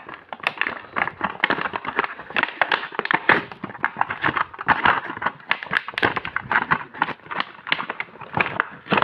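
Card-and-plastic blister packaging being torn open by hand: a continuous run of irregular crackles and rips.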